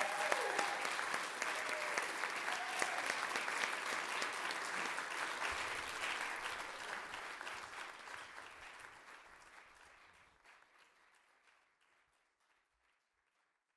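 Audience applauding after a solo marimba performance. The clapping thins out and dies away over the second half, ending about two seconds before the end.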